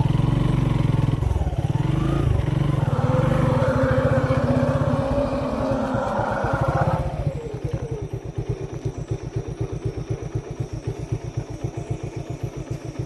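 A vehicle engine running with a steady throbbing beat, louder and revving for about the first seven seconds, then dropping back to a quieter idle.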